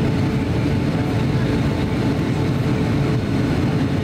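Steady cabin noise inside a Boeing 757-200 in flight on descent: the low rumble of airflow and its Rolls-Royce RB211 engines, with a faint steady hum on top.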